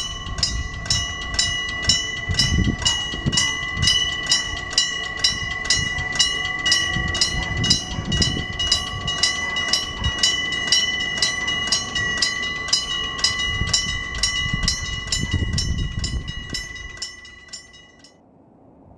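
Railway level-crossing warning bell struck about twice a second, each strike ringing on into the next, while a train rumbles past; the ringing stops near the end.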